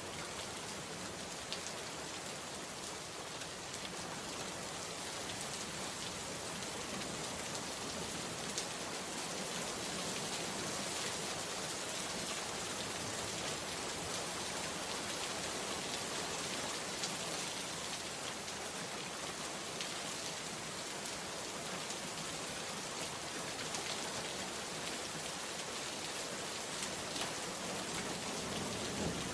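Steady rain falling, a continuous even hiss with scattered individual drops ticking.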